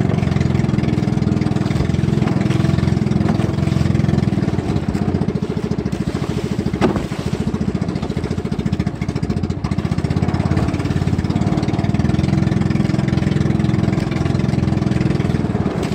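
Inboard engine of a motorized outrigger boat running steadily underway, with a fast, even pulse. A single sharp knock comes about seven seconds in.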